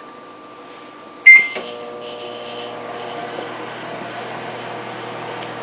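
Microwave oven keypad giving one loud, short beep about a second in, then the oven starting and running with a steady hum.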